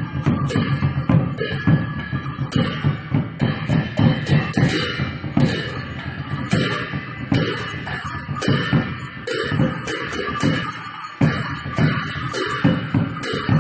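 Loud music with a steady drum beat, about two beats a second.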